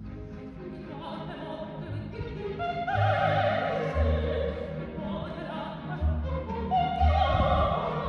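Operatic soprano singing with a full symphony orchestra. The orchestra plays alone at first, then the soprano enters about three seconds in with a strong vibrato over deep bass notes.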